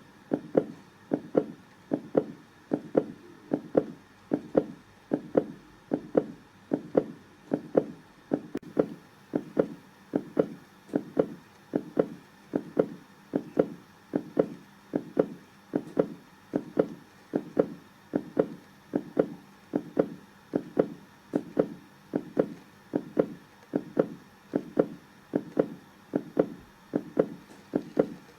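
Heartbeat: a steady, even rhythm of low double thumps (lub-dub), about one double beat a second.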